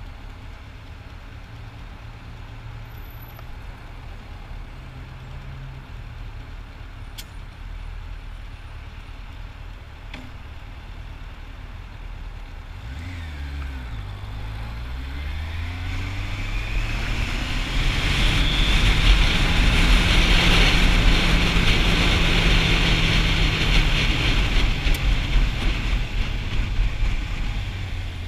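Motorcycle riding in traffic: a steady low engine note that falls and then rises again about halfway through. After that a loud rushing noise swells and fades over about ten seconds.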